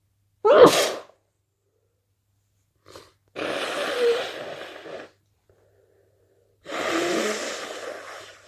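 A person with a head cold sneezing once, sharply and loudly, then blowing their nose twice, each blow a long, wet, hissing rush of air lasting close to two seconds.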